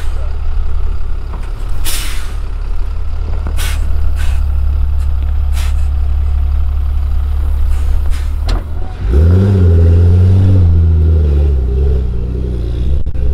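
Engine of a Yörük 4x4 armoured vehicle, about 11 tonnes, as it works down a steep off-road slope. It runs low and steady with a few brief sharp noises. About nine seconds in it revs up to a much louder steady note, then drops back near the end.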